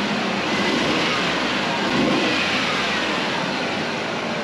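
1996 Ford Ranger's 3.0-litre V6 running steadily while it warms up, swelling slightly about two seconds in. It has just had a faulty fuel injector dealt with for a misfire, and the owner thinks it has smoothed out.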